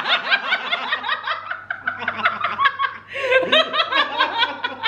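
A man and a woman laughing together in quick, repeated bursts. The laughter dips briefly about three seconds in, then picks up again.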